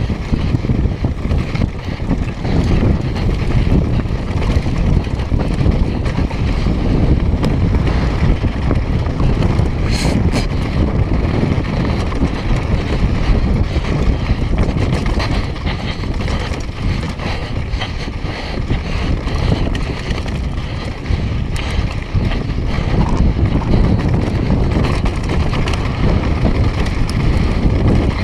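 Wind buffeting a GoPro's microphone on a fast downhill mountain-bike descent, mixed with mountain-bike tyres running over a dry, rocky dirt trail and the rattle of the bike. There is a sharper clatter about ten seconds in.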